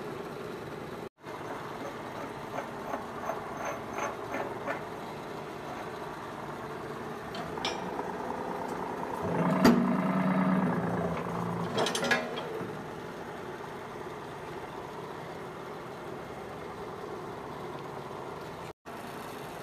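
Hydraulic ironworker's power pack running steadily, with scattered light metal clicks. About halfway through the pump note grows louder for a couple of seconds as the machine works under load cutting a steel angle, ending in a sharp snap.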